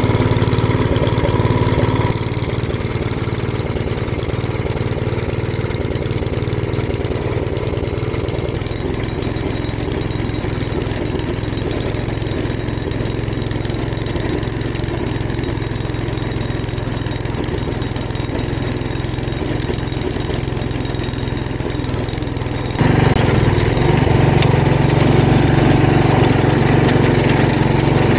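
Grillo walk-behind tiller's 9 hp petrol engine running steadily under throttle, with no let-up. About 23 seconds in it suddenly gets louder and stays louder.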